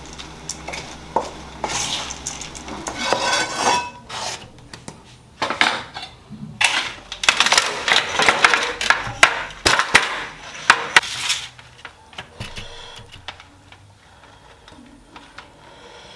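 Metal kitchenware clattering: a wooden spoon scraping and stirring puffed rice in a steel bowl, then a busy run of clanks and clinks from an aluminium momo steamer being handled, with a few lighter clicks near the end.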